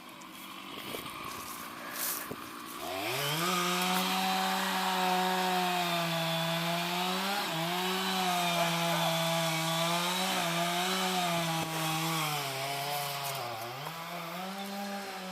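Two-stroke chainsaw revving up about three seconds in and then running at high speed as it cuts tree wood, its pitch dipping briefly a few times as the chain takes the load.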